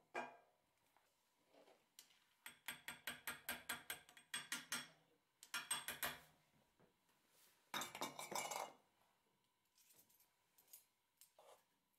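Metal spoon clinking against a small glass bowl as cocoa powder is spooned in: runs of quick light taps, several a second, in three or four bursts, the densest about eight seconds in.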